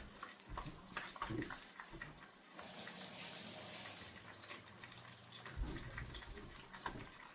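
A kitchen tap runs for about a second and a half as a spoon is wetted under it. Light clicks and knocks come before and after it.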